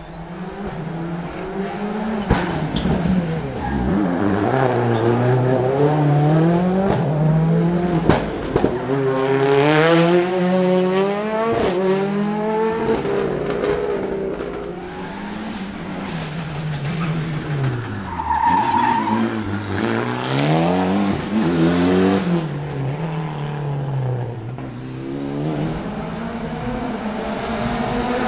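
Rally car engine revving hard, the revs climbing and dropping over and over through gear changes, with several sharp cracks from the exhaust along the way.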